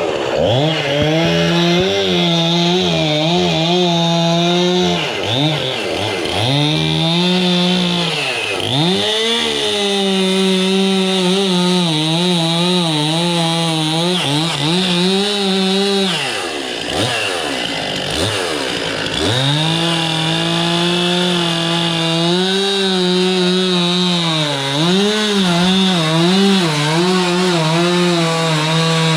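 Chainsaw running at high revs, its pitch dropping and recovering several times as it loads up in cuts through Melaleuca (paperbark) timber.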